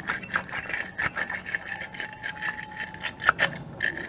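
Battery terminal-cleaning brush twisted inside a lead battery cable clamp, making quick, irregular scraping strokes of wire bristles on metal, scouring the corrosion off until the contact is shiny.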